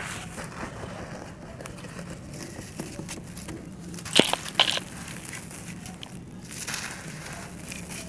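Hands digging and rubbing through dry, gritty sand clay, with a steady crunchy rustle of grains. About four seconds in, two sharp crunches half a second apart as a dry clump crumbles in the hand.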